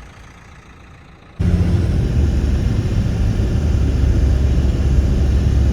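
A loud, steady low rumble that starts abruptly about a second and a half in, after a quieter stretch.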